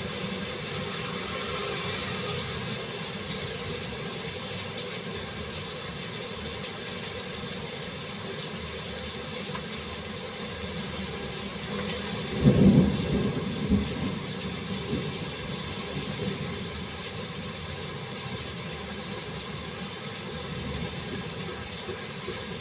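Heavy rain falling steadily, with a loud low rumble of thunder about twelve seconds in that swells in a few peaks and fades.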